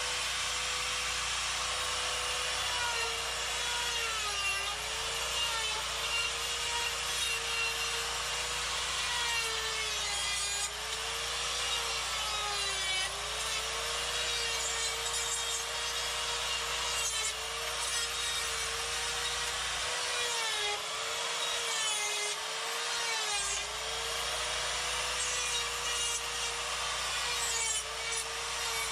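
Electric die grinder with a coarse burr cutting and rounding wood on the branches of a carved tree. Its motor whine holds steady and dips briefly in pitch again and again as the burr bites in.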